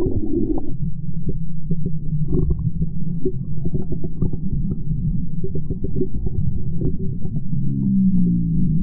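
Muffled low rumble and sloshing of water picked up by an underwater camera, with scattered faint clicks and knocks and no bright sound at all. A short low hum rises near the end.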